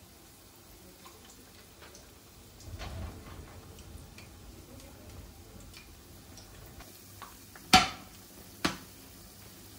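Tempura-battered vegetables frying in shallow oil with a faint, steady crackle of small pops. Near the end come two sharp clinks of a utensil against cookware, about a second apart.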